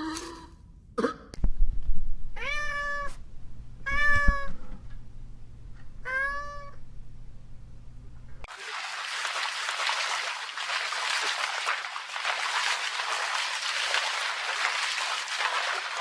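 A cat meowing three times, each meow short and pitched with a slight rise and fall. About halfway through it gives way to a steady hiss of noise.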